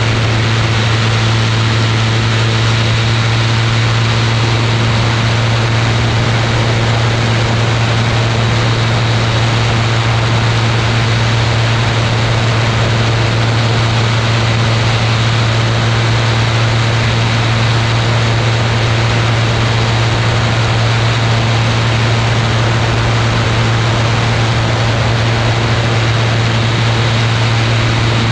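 Ultralight aircraft engine and propeller running steadily in flight, a constant low drone over a broad rushing noise.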